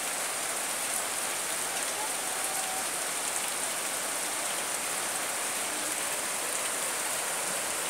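Steady heavy rain pouring down on the ground and surroundings, an even hiss with no let-up.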